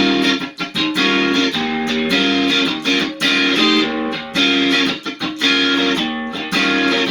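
Electric guitar played through a Lovepedal Supersix overdrive pedal into a Fender Hot Rod Deville amp, without reverb: a series of overdriven chords and fills, each struck and briefly held. It is the pedal's own drive tone, with no boost pedal in front.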